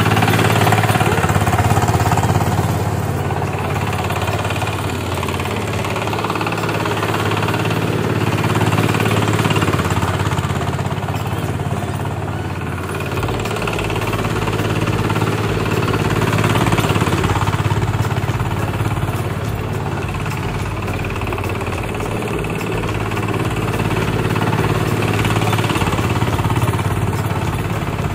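Diesel engine of a homemade boat tractor running steadily under load as the tractor works through deep paddy mud, its loudness rising and falling a little.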